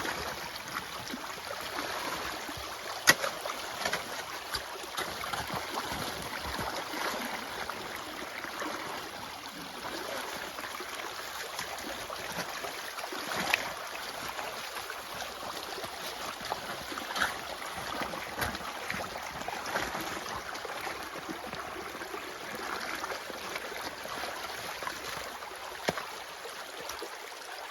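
Floodwater running steadily along a ditch channel. A shovel knocks sharply against ice a few times, loudest about 3 seconds in.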